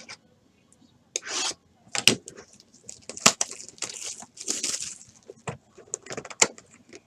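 Hands handling and opening a cardboard 2018 Panini Chronicles trading-card box: cardboard rubbing, scraping and tearing with scattered sharp taps, starting about a second in.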